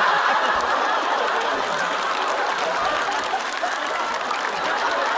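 Live studio audience applauding and laughing, a dense, steady wash of clapping that swells up just as it begins and holds.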